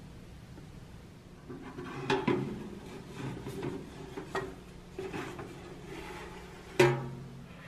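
A metal baking tray slid by hand onto the rack of a countertop toaster oven, scraping and clinking on the rack, ending in a loud clunk near the end.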